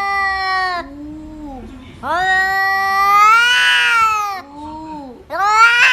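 A cat yowling in long drawn-out calls. One call near the middle rises in pitch. Each long call is followed by a shorter, lower call, and another loud yowl starts near the end.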